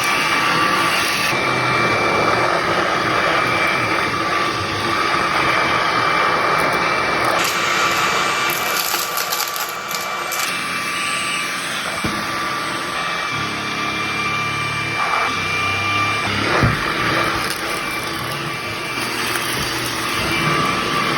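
Kärcher VC6 Premium cordless stick vacuum running, its filter freshly cleaned: a steady rush of air with a high motor whine, and crackling as debris is sucked up. The sound shifts for a few seconds about a third of the way in.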